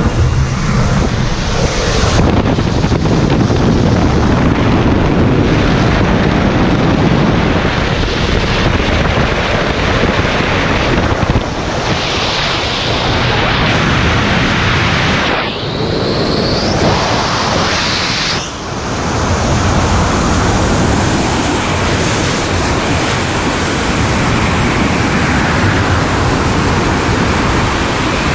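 Loud rushing wind buffeting the camera's microphone as a skydiver leaves the aircraft and falls at freefall speed. The wind shifts and dips briefly a few times around the middle.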